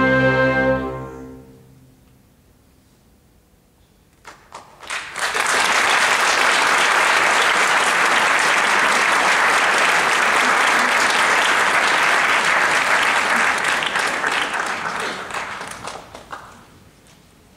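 Final chord of a piano and orchestra dying away over about a second and a half, then a few seconds of silence. A few scattered claps about four seconds in grow into full audience applause, which fades out near the end.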